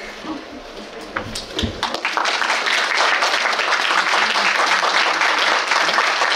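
Audience applauding in a hall: a few scattered claps at first, swelling into full, dense applause about two seconds in.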